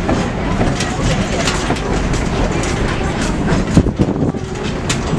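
Narrow-gauge passenger train running along the track: a steady rumble with irregular clicks and knocks from the wheels and cars.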